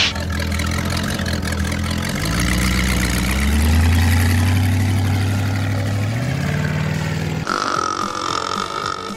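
A motor running low and steady, rising in pitch twice like an engine revving, then cutting off suddenly near the end. A different, higher sound takes its place.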